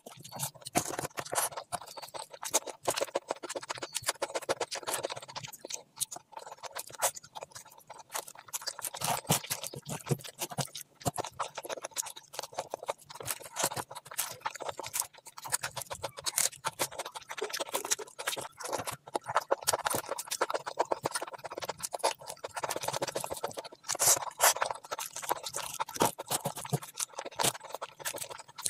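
Close-miked eating of curry and rice by hand: chewing with many quick irregular clicks, mixed with the fingers working through the food.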